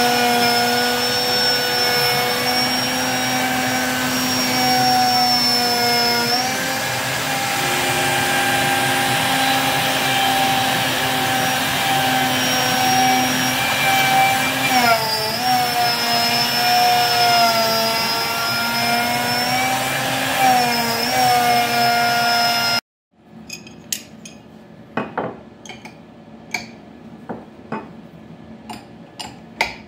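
CNC router spindle milling out the centre of a hardwood tray with a ramped entry, over a dust-collection vacuum drawing chips through the boot: a steady whine whose pitch dips briefly twice as the bit loads in the cut, with the ramping letting it cut without jamming. About 23 seconds in it stops abruptly, followed by light metallic clinks of a wrench at the spindle's collet.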